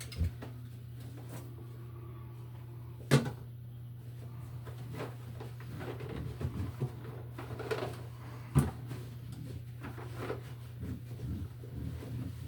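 Scattered clicks and knocks of hands and tools handling a rusted receptacle box, with two sharp knocks about three seconds and eight and a half seconds in and a run of small clicks near the end, over a steady low hum.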